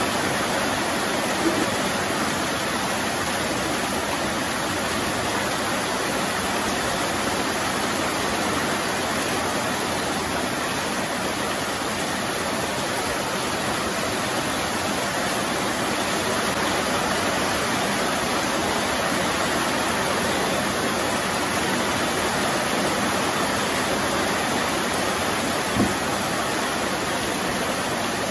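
Heavy rain falling steadily, with two short knocks: one about a second and a half in and one near the end.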